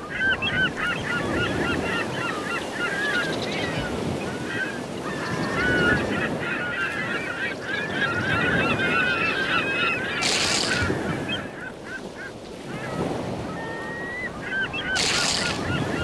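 A flock of seagulls calling: many short squawks overlapping, dense for the first ten seconds and thinner after. Two brief bursts of hiss come about ten and fifteen seconds in.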